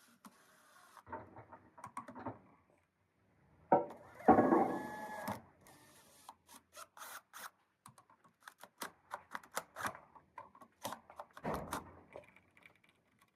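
Hand-tool work on a door hinge and its screw in wood: a run of clicks, ticks and scraping, with a louder, longer rasping burst about four seconds in.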